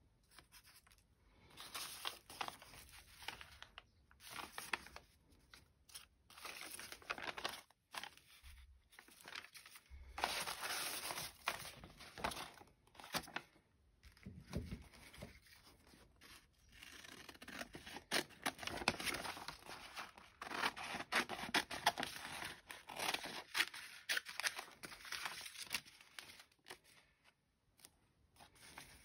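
Sheets of gel-printed collage paper rustling and crinkling as they are picked up and handled, with scissors snipping through paper, in several busy stretches broken by short pauses.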